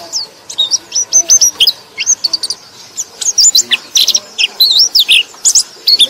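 Pleci (white-eye) singing: a fast, almost unbroken run of high, thin chirps and sweeping whistled notes, with only brief pauses.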